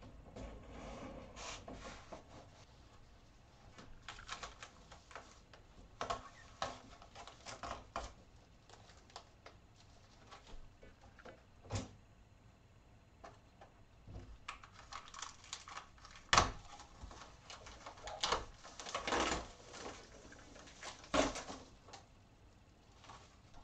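Irregular clicks, knocks and rustling as stiff window coverings, including a foil-faced insulation panel, are pulled down from a window and handled. One sharp knock about two-thirds of the way through is the loudest.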